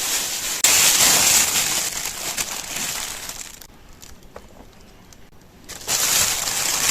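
Plastic flour bag crinkling as flour is poured into a mixing bowl for bun dough. There are two stretches of rustling hiss with a quieter break in the middle.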